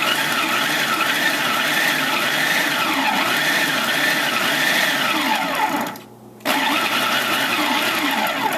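Hamilton Beach food processor motor running, its blade chopping canned corned beef. It runs in two pulses: a long one, a short break about six seconds in, then a shorter one that stops at the end.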